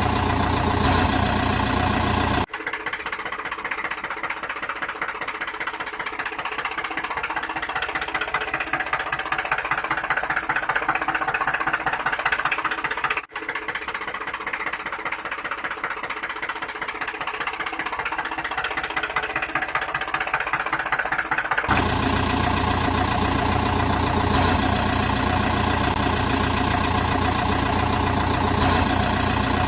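A vehicle engine running steadily. About two seconds in it switches to a thinner, rapidly clattering engine sound with no deep rumble, which drops out briefly midway. Near the end the low, steady running returns.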